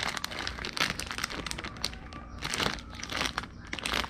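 Plastic instant noodle packet crinkling and crackling in the hands as it is handled, a fast irregular run of sharp crackles.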